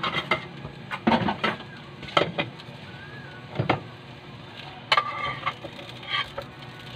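Hotdogs sizzling in a frying pan, with several sharp clinks and knocks of dishes and utensils being handled.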